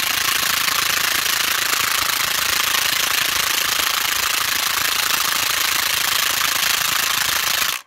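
Parkside PASSP 20 Li A1 cordless impact wrench hammering continuously on a rusted nut, a steady rapid rattle that cuts off abruptly at the very end.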